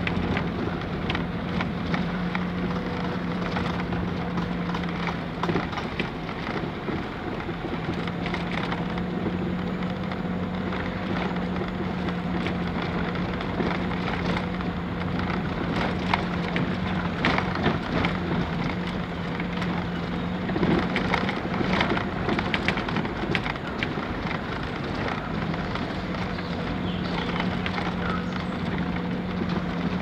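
A car driving along a narrow road: a steady engine hum under continuous tyre and road noise, with scattered clicks and rattles throughout.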